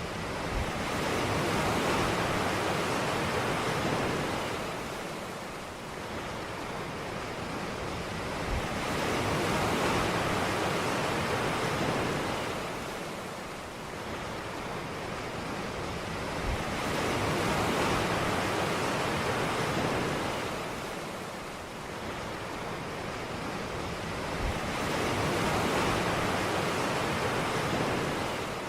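Ocean surf washing onto a beach: a steady hiss of breaking waves that swells and eases about every eight seconds, four times over.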